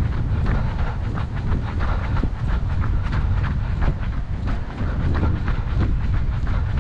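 A runner's footfalls on a dirt path at a steady running rhythm, over a low rumble of wind buffeting the microphone.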